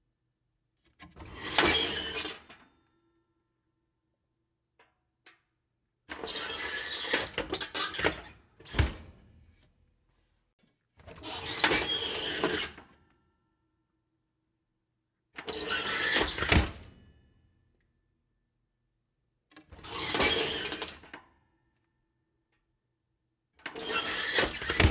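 Creaky oven door swinging open, a scraping creak of a second or two, repeated six times with pauses between. Some of the creaks end in a dull thump.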